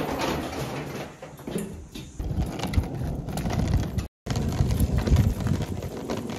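Suitcase wheels rolling over an asphalt street, a continuous rattling rumble, broken by a brief dropout about four seconds in.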